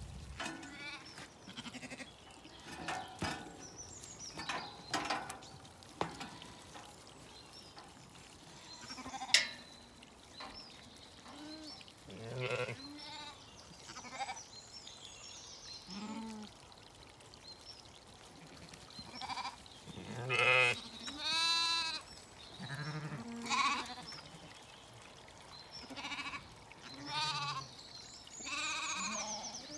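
Zwartbles sheep and lambs bleating on and off, a dozen or so separate calls, with one long wavering bleat about two-thirds of the way through. A few light clicks come early, and one sharp knock about nine seconds in is the loudest single sound.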